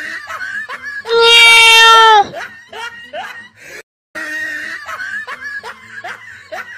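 High-pitched cries of a young animal: one long, loud cry about a second in, amid many short rising squeaks, with a brief break in the middle.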